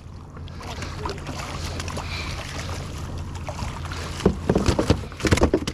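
Wind and water noise around a fishing kayak, then a quick run of knocks and clatter about four seconds in.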